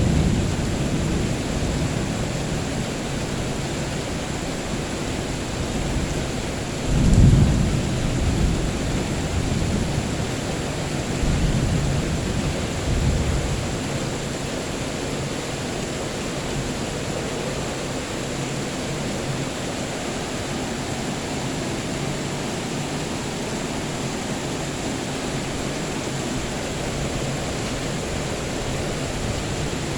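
Steady heavy rain with rolling thunder: a loud low rumble about seven seconds in, a few fainter rumbles shortly after, then rain alone.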